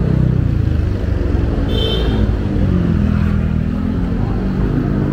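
Road traffic passing: vehicle engines running loud, their pitch dipping and then rising, with a brief high tone about two seconds in.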